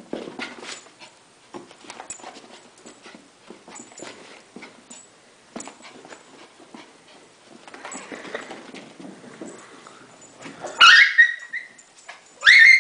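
Silky Terrier giving two sharp, high-pitched whining yelps about a second and a half apart near the end, after a stretch of light scattered scuffling and tapping.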